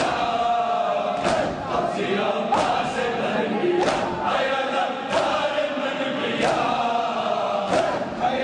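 Crowd of men chanting a noha (Muharram lament) together, with a collective chest-beat, hands striking chests in unison, about once every 1.3 seconds as the matam rhythm.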